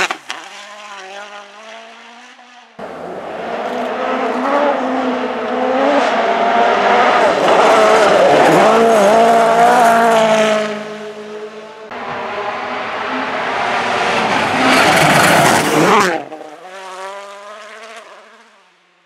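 Three World Rally Cars, 1.6-litre turbocharged four-cylinders, passing at speed one after another on a gravel stage, their engines revving hard, pitch rising and dropping with throttle and gear changes, over the hiss of tyres on gravel. The first is already fading away, the second builds to the loudest pass about seven to ten seconds in, and the third passes near the end before fading almost to nothing.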